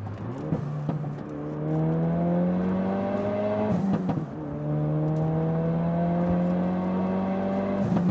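Ford Focus RS's 2.3-litre turbocharged four-cylinder engine heard from inside the cabin, pulling under acceleration with its note rising steadily. About four seconds in it breaks off briefly for an upshift, comes back lower in pitch and climbs again.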